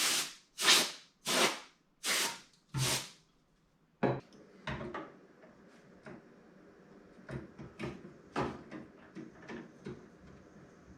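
Protective plastic film being peeled off a PC component in five quick ripping strokes during the first three seconds, followed by quieter clicks and rustles of handling the parts.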